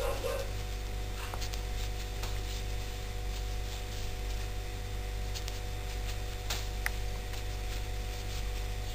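Steady low electrical hum, with a few faint, scattered ticks and rustles from a metal crochet hook and yarn being worked through single crochet stitches.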